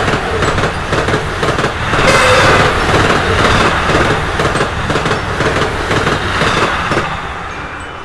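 KiHa 120 diesel railcars running past along the track, wheels clicking rapidly over the rails. The sound swells about two seconds in and fades toward the end as the cars move away.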